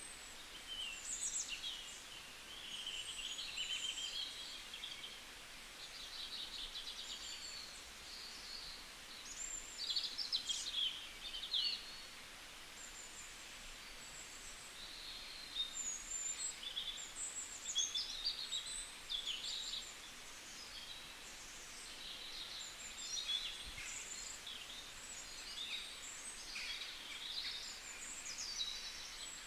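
Birds chirping and singing in a steady stream of short, quick calls over a low background hiss.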